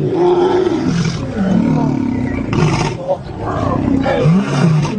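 Several lions snarling and growling at a kill, squabbling over the carcass. Loud, overlapping calls rise and fall in pitch one after another.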